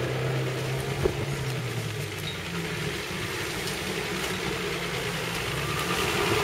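Nissan Patrol 4x4's engine running steadily at low revs as it crawls along a muddy track. One sharp knock about a second in.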